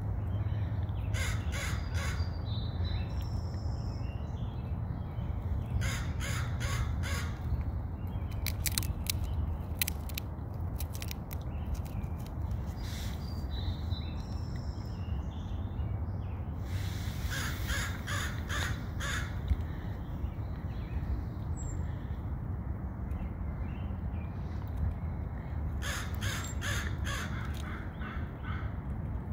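Crow cawing in four separate bursts of several quick calls each, over a steady low rumble.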